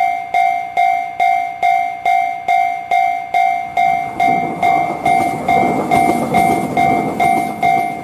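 Railroad crossing alarm bell ringing a steady, even ding about twice a second. From about four seconds in, a passing train's rumble swells under the bell and fades again before the end.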